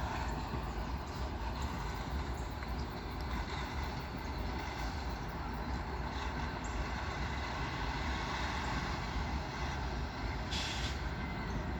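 Engine running steadily with a low rumble, and a short hiss about ten and a half seconds in.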